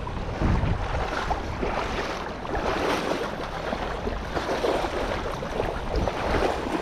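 Wind buffeting the microphone outdoors, an uneven low rumble over a steady rushing noise.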